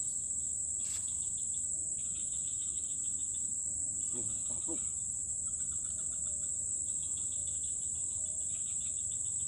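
Insects droning: one steady, high-pitched buzz that never lets up, with a fainter pulsing trill coming and going beneath it.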